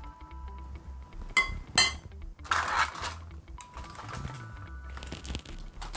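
A metal spoon clinking twice against the bowl, then a scraping rustle, as bean batter is scooped into foil cones. Soft background music with sustained notes plays throughout.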